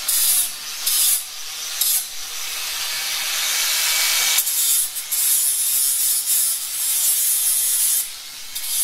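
Electric angle grinder's abrasive disc grinding goat horn, smoothing the sharp edges of the freshly cut horn stump. It starts with a few short touches, runs as a long continuous grind from about two seconds in, and breaks into short touches again near the end.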